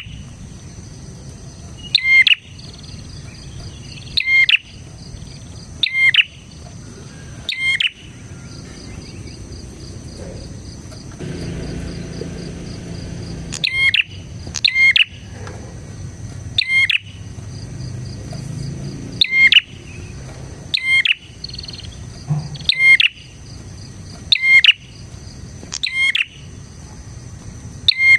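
Prenjak (prinia) calling: short, loud, sharp calls repeated every one to two seconds, with a pause of several seconds in the middle. A steady high insect-like trill runs behind them, and a brief low rumble comes during the pause.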